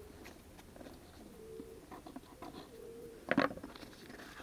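Racing pigeons cooing softly, low and repeated, with one brief, louder sharp sound about three seconds in.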